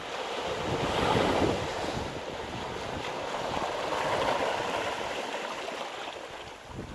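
Sea waves surging and breaking at high tide, a rushing wash that swells twice and then eases off, with a brief gust of wind on the microphone near the end.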